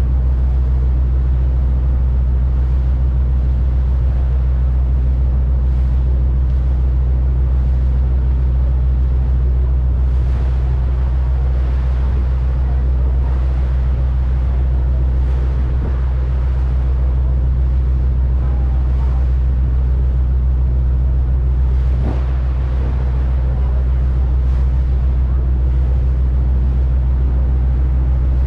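Steady low drone of a harbour ferry's engines heard on board, with an even hiss of wind and water over it.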